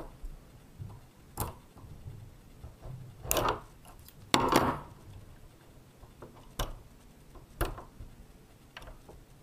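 A small RC helicopter and its parts being handled on a tabletop: about half a dozen scattered clicks, taps and short scrapes, the loudest about four and a half seconds in.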